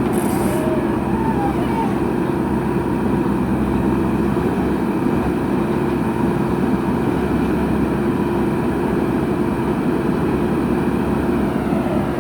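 Heavy diesel engine of earth-moving machinery running steadily at constant speed, with a brief high hiss just after the start.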